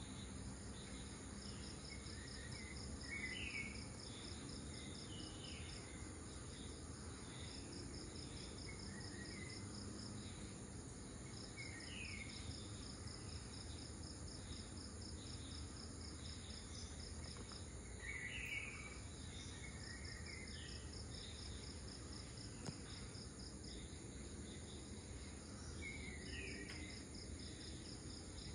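Crickets and other insects chirping in a steady, pulsing trill over a steady high drone, with short bird calls a few times.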